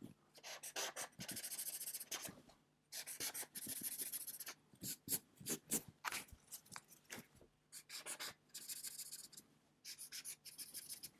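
Felt-tip marker scribbling on a flip-chart pad, faint: several short spells of quick back-and-forth strokes as small squares are coloured in and figures crossed out, with single strokes and taps between them.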